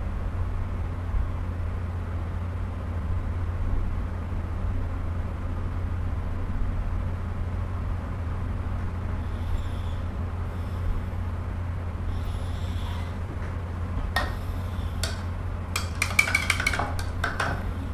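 Steady low background hum, with the soft scrape of brush strokes. In the last few seconds comes a run of sharp light clicks and clinks, the sound of a brush knocking against the palette and paint jars while paint is mixed.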